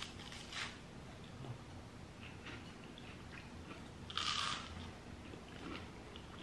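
People biting into and chewing toast, faint: a short crunch at the start, another about half a second in, quiet chewing, and a louder crunch about four seconds in.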